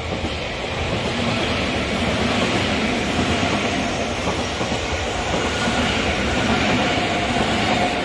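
Odakyu Line commuter electric train passing close by, its wheels running on the rails with a steady rumble and rattle that swells over the first second and holds until the train has nearly passed.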